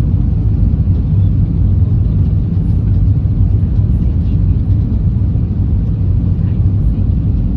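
Steady low rumble inside the cabin of an Airbus A320, heard from a passenger seat.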